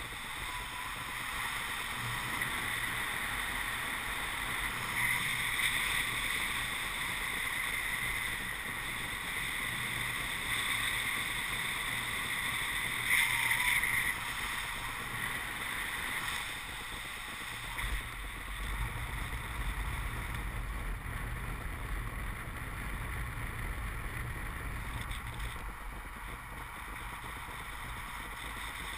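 Wind rushing over the microphone of a camera on a paraglider's harness in flight: a steady rushing noise, with a brief louder gust about halfway and a low buffeting rumble added over the last third.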